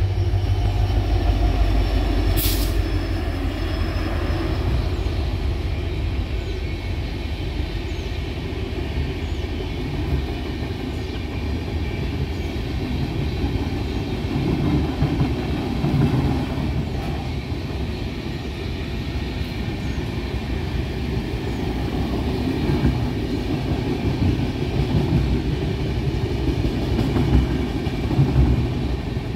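Electric locomotive and passenger coaches of an express train passing close by at speed, with a continuous rumble of wheels on the rails that is heaviest in the first few seconds as the locomotive goes by. A short sharp metallic clank with a brief ring comes about two and a half seconds in.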